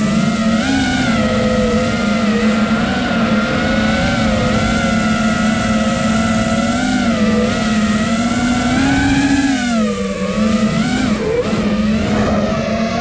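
Brushless motors and propellers of a 5-inch FPV freestyle quadcopter, an iFlight Nazgul Evoque 5, whining steadily in flight. The pitch rises and falls with the throttle, climbing about nine seconds in and dipping just after.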